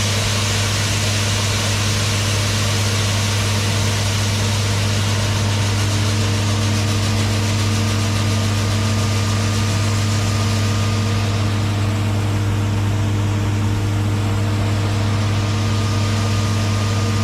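Case IH 1640 combine running steadily while harvesting soybeans: a constant low drone with machine hum over it and a hiss of threshing and air that thins out about two-thirds of the way through.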